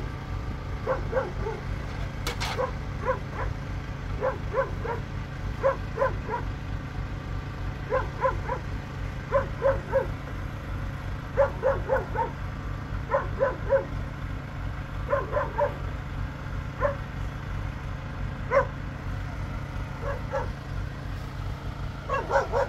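A dog barking repeatedly in short runs of two to four barks, over a steady low rumble.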